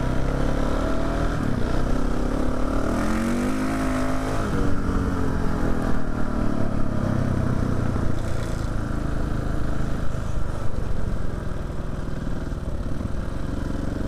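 KTM 690 Enduro R single-cylinder four-stroke motorcycle engine running under way, revving up about two seconds in and easing off after about four seconds, then pulling steadily.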